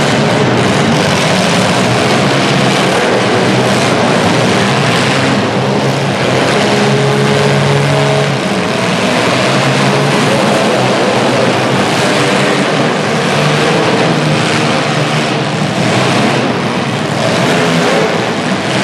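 Several demolition derby cars' engines revving hard together as the heat gets under way, a loud, continuous mix of engines that rises and falls in pitch.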